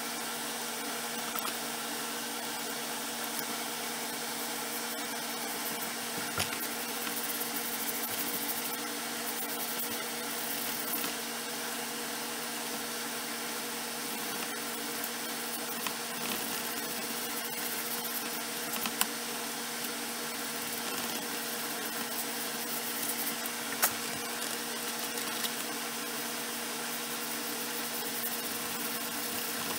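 Steady mechanical hum with a constant hiss, and a few brief clicks.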